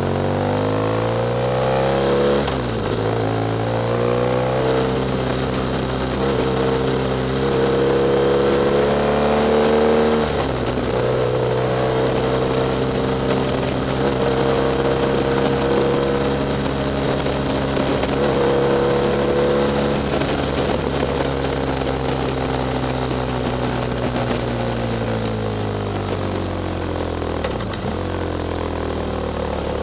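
Motorcycle engine running at steady revs under way. The revs drop sharply and recover about two and a half seconds in and again around ten seconds, then fall away gradually near the end.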